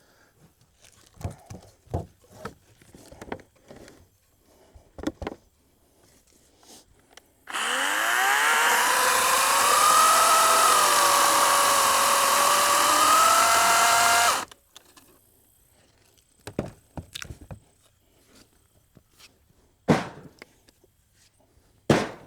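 Wild Badger CSB40U 40-volt battery chainsaw running for about seven seconds, most likely cutting through a log. Its electric motor whine rises as it spins up, wavers in pitch as the load changes, then cuts off suddenly. Scattered knocks from handling wood come before and after, with two sharp loud knocks near the end.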